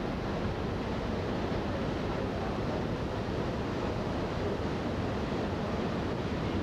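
Steady rushing of wind and sea from a ferry under way, with wind buffeting the microphone.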